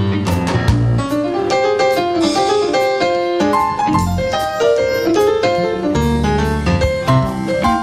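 Live blues band playing an instrumental break, with a keyboard solo in the lead over bass and drums.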